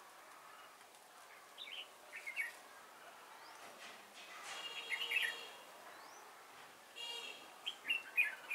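Red-whiskered bulbuls singing in three short bursts of quick chirping phrases, the last and loudest near the end.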